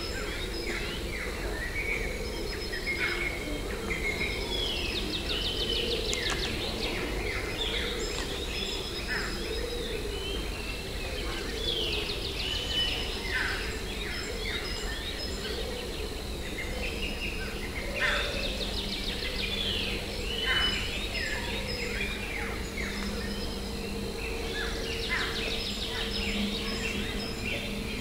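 Many birds calling over one another in a continuous chorus of short, downward-sweeping calls and chatter, with a low steady hum beneath.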